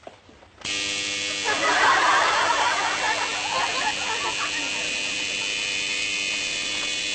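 Lift overload buzzer sounding a steady, continuous buzz that starts about half a second in as another person steps into the car: the alarm that the load limit is exceeded. For a few seconds near the start, a burst of voices rises over it.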